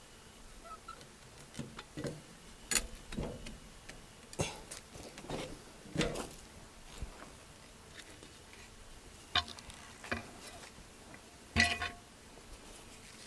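Scattered knocks and clatters of slabs and sawmill parts being handled, with no engine running. The sharpest knock comes near the end.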